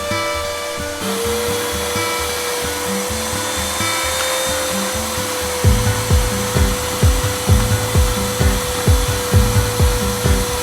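Background music: a held note over a repeating bass figure, with a steady drum beat coming in about halfway through.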